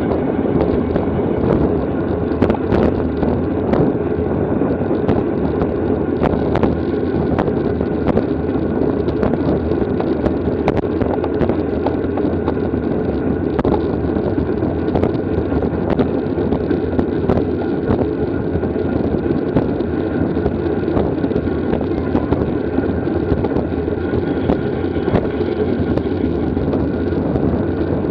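Steady rush of wind and road noise at racing speed on a bicycle, heard on a bike-mounted camera's microphone, with small clicks and knocks scattered throughout.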